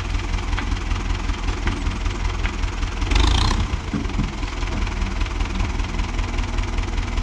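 Renault 651 tractor's diesel engine running steadily at low revs while its front loader tips a load, with a brief loud rush of noise about three seconds in as the load comes out.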